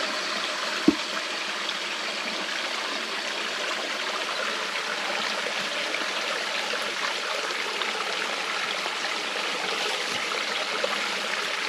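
Steady rushing of a jungle stream flowing over rocks, with one brief sharp tap about a second in.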